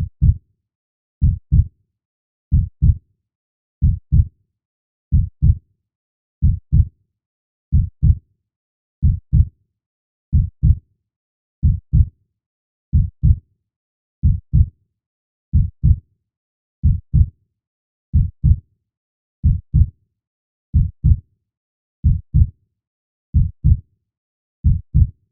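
Heartbeat sound: a slow, steady double thump (lub-dub) about every 1.3 seconds, low-pitched, with silence between beats.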